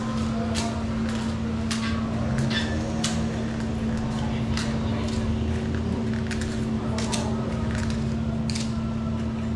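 Paper cupcake liners crinkling and clicking as they are pulled apart from a stack and dropped into metal muffin tins, in short irregular ticks. Under them runs a steady low mechanical hum.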